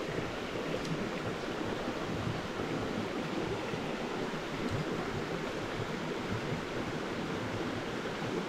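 Steady rush of a small brook's water flowing over stones.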